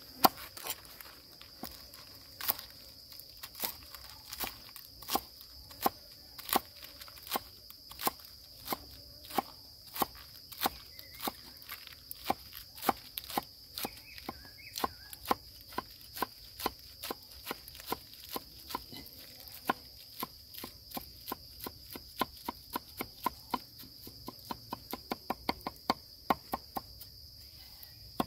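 Knife chopping food in steady single strokes, about one to two a second, quickening to a faster run near the end. A steady high-pitched insect drone goes on behind.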